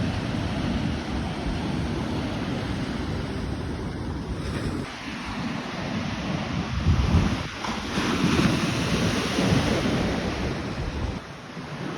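Sea waves surging and breaking at a big high tide, with wind buffeting the microphone. The surge grows louder toward the middle and later part.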